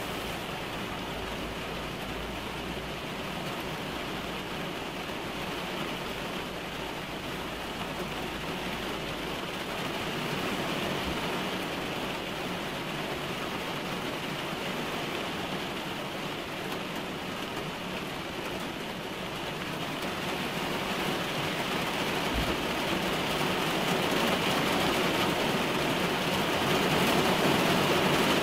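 Heavy rain falling on a car's roof and windshield, heard from inside the cabin: a steady, dense hiss of drops that grows louder over the last third.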